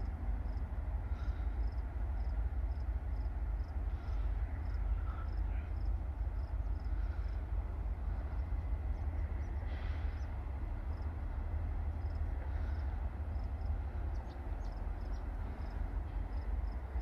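Low, steady rumble of a diesel freight locomotive approaching slowly at a distance, with faint high chirping repeating a few times a second.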